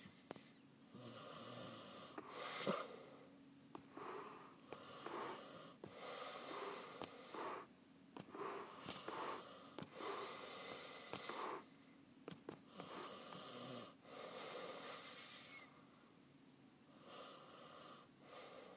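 Faint, uneven breathing close to the microphone, each breath lasting a second or so, with scattered light taps.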